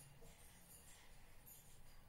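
Near silence: faint room tone with a few soft, short hisses.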